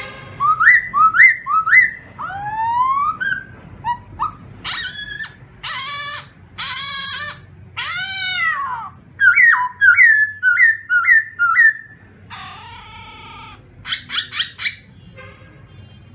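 Caged khướu mun (black laughingthrush) singing a loud, varied song of whistled phrases with rising and falling slurs, including a run of quick repeated notes, a few harsher rasping notes and a short rapid burst near the end.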